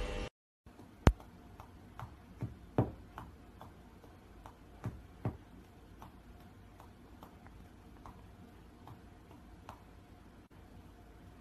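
A dog's tail tapping steadily, about two to three soft taps a second, with a few louder thumps among the first ones.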